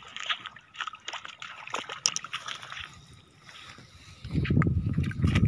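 Shallow seawater sloshing and crackling on a wet tidal flat. About four seconds in, a much louder low rumble starts and runs on.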